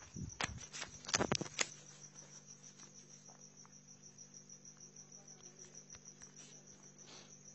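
An insect trilling steadily in a high, pulsing note, over a low steady hum. A handful of sharp clicks come in the first two seconds.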